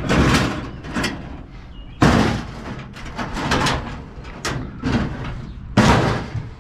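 Junk being shoved and wrestled into place: three loud bangs, at the start, about two seconds in and near the end, with clattering and scraping between.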